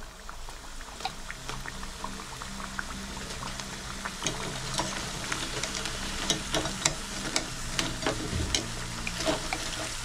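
Battered potato pieces deep-frying in hot oil: a steady sizzle with sharp pops and crackles that come thicker from about four seconds in.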